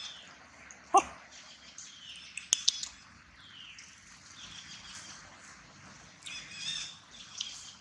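Birds chirping, with short animal calls: one sharp, loud call about a second in, a couple of clicks at about two and a half seconds, and a run of high chirping calls near the end.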